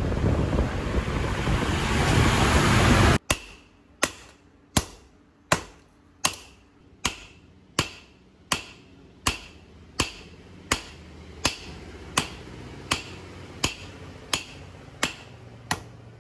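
A loud rushing noise that cuts off abruptly about three seconds in. It is followed by a steady series of hand-hammer blows on a red-hot knife blade of M30 gun-barrel steel lying on an anvil: about eighteen sharp, ringing strikes, a little more than one a second.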